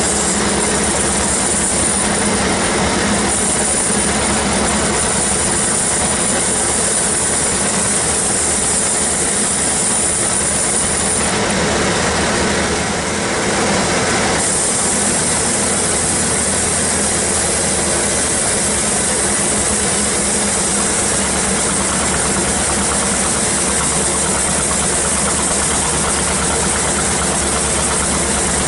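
Sawmill machinery running steadily, an engine-driven band saw working through a teak log, with a high whine over the engine hum that stops for a few seconds midway and then returns.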